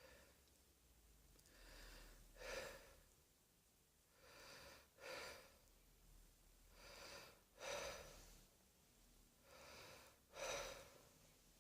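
A person breathing faintly and slowly, four breaths in and out about two and a half seconds apart.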